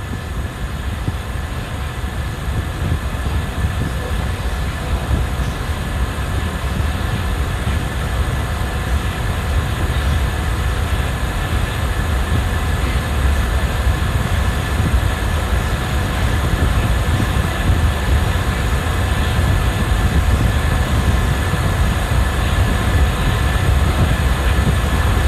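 Steady rumbling noise, a deep rumble under a hiss, slowly growing a little louder.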